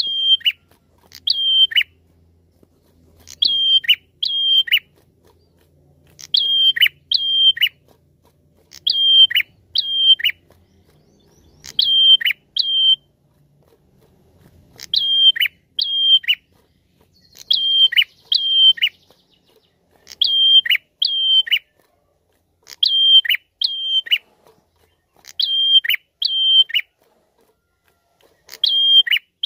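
A caged prenjak calling loudly. Each bout is two or three sharp high notes, each sweeping down into a short held high whistle, and the bouts repeat every two to three seconds.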